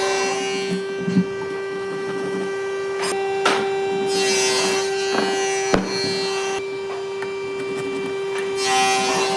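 Wood being worked: rasping, rubbing scrapes and a few sharp knocks over a steady hum.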